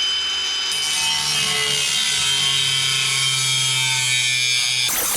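Power tool cutting through metal pipe: a steady, loud whine with hiss as the blade works through the tube, the motor note sagging slightly under load. It cuts off abruptly near the end.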